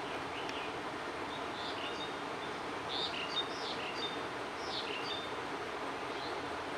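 Small birds chirping in short, quick calls, mostly in the middle stretch, over a steady hiss of outdoor background noise.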